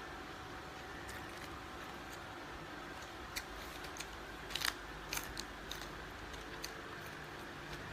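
Scattered sharp clicks and light taps, a cluster of them about halfway through, over a steady low background hum.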